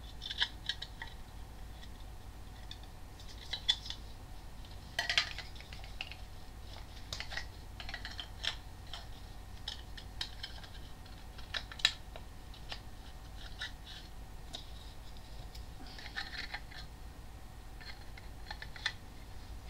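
Plastic parts of a disassembled Nerf Maverick Rev-6 blaster being handled and fitted together: irregular light clicks, taps and rattles of hard plastic.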